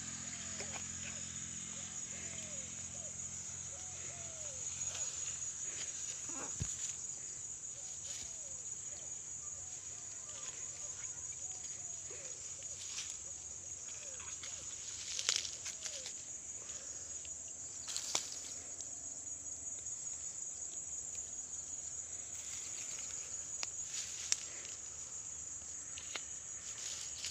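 Insects droning steadily at a high pitch, with a few sharp clicks and knocks around the middle.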